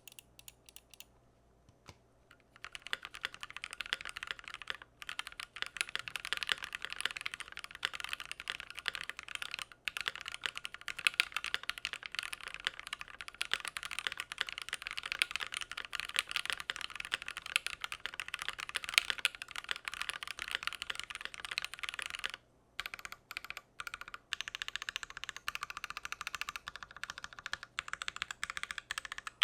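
Typing on a Keychron Q1 mechanical keyboard with an aluminium gasket-mounted plate: a few keystrokes, then fast continuous typing from about two seconds in. There is a brief break near the end, after which the typing goes on with short gaps.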